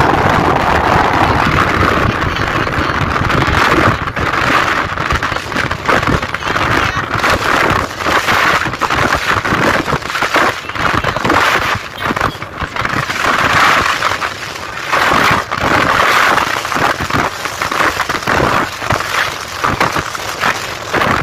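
Wind rushing and buffeting against a phone's microphone while riding on the back of a moving two-wheeler, a loud steady rush broken by irregular gusts.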